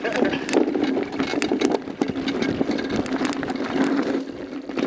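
Mountain bike rolling over a rough trail: a steady run of rattling and clicking from the bike, over tyre and wind noise with a low steady hum.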